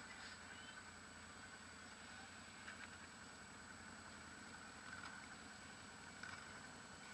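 ATV engine running steadily at low speed, faint, with a few light knocks.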